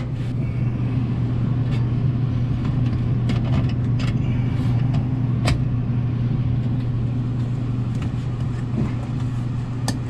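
A steady low hum from an unseen machine, with a few short sharp clicks scattered across it as pliers squeeze and work a spring hose clamp onto the rubber hose at a washing machine's drain pump.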